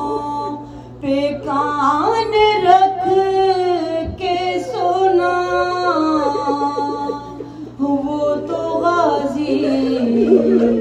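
A single unaccompanied voice chanting an Urdu salam in soz style, drawing the words out in long, ornamented held notes with brief breaths between phrases. A steady low hum runs beneath.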